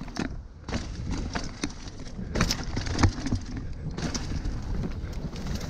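Mountain bike descending a rough, leaf-covered dirt trail: a steady rumble of tyres and wind on the microphone, with irregular knocks and clatter from the bike rattling over bumps, the loudest about three seconds in.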